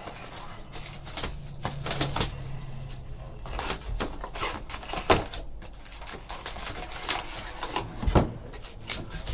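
Trading cards and packs being handled on a table: irregular soft taps, slides and rustles as cards are flipped and stacked.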